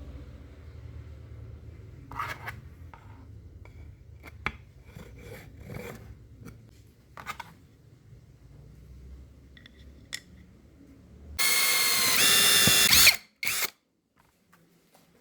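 Power tool work: a low motor hum with scattered knocks and clicks, then a loud, high-pitched whine for about a second and a half near the end, and one short burst just after it.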